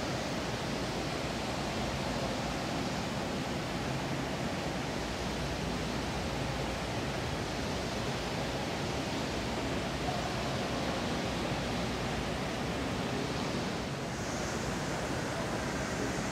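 Steady room ambience of a large hotel atrium: an even, unbroken rushing hiss.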